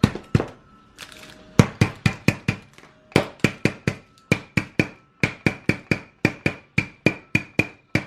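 Butterfinger candy bars being crushed with rapid, evenly spaced sharp blows, about three a second, with a brief pause about a second in. Each blow rings slightly.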